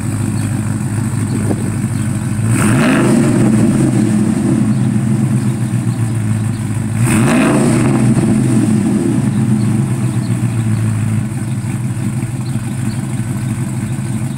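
2004 Chevy Tahoe's 5.3-litre V8, fitted with a Texas Speed and Performance stage 2 truck cam (212/218 duration, .600 lift, 112 LSA), idling at the exhaust and revved briefly twice, about two and a half and seven seconds in.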